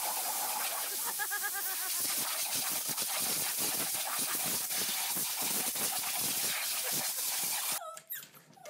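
Steady hiss of a spray wand's jet aimed at a pit bull–type dog that bites at it, with a brief high squeal about a second in. The hiss cuts off near the end.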